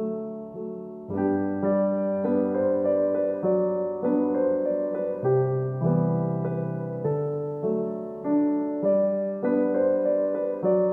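Background piano music: a melody of struck notes over chords, filling out about a second in.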